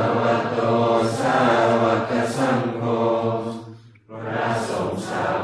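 A group of voices chanting Thai Buddhist morning chanting in unison, in a steady, level recitation on long held tones. The chant breaks off briefly about four seconds in for a breath, then resumes.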